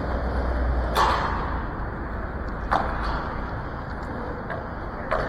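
Three sharp cracks echoing under a concrete overpass, about a second, nearly three seconds and five seconds in, the first the loudest, over a steady background rumble and hiss.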